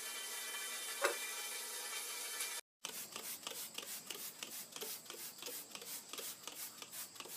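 A kitchen faucet running steadily, with one short knock about a second in. It cuts off, and then a trigger spray bottle is squirted again and again onto a plastic laundry basket, several quick sprays a second.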